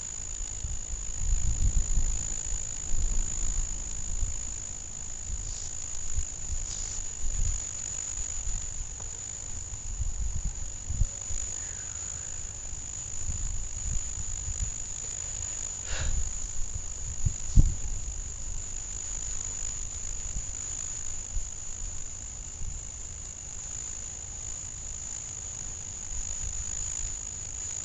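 A night insect chorus, the 'bug frenzy': a steady, high-pitched, unbroken drone. Irregular low rumbles and a few low thumps sit beneath it, the loudest about two-thirds of the way through.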